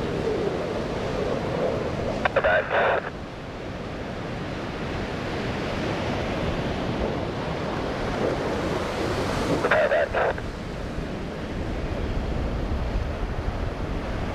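A steady rushing roar of surf and wind on the microphone, with the distant roar of a Thunderbirds F-16 jet swelling to its loudest about nine seconds in. Two brief snatches of a public-address voice come through, about two seconds in and near ten seconds.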